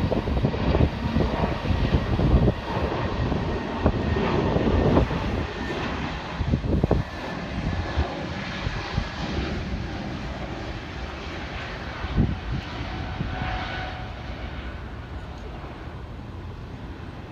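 Spirit Airlines Airbus A320-family airliner's twin jet engines at takeoff power: a broad rushing roar that fades steadily as the jet rolls down the runway and climbs away. Gusts of wind buffet the microphone with low rumbles in the first half.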